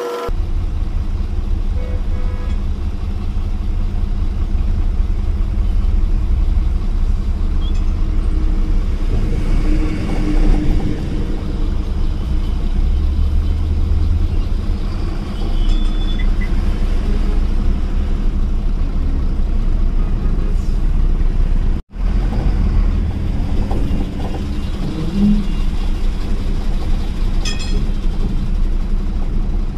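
BharatBenz 4023 truck's diesel engine running steadily as heard inside the cab, a continuous low rumble while the truck moves slowly through traffic.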